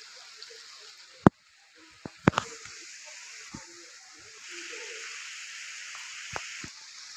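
Outdoor ambience by water: a steady hiss that swells slightly about four and a half seconds in, with faint voices and a few sharp knocks, the loudest just over a second in.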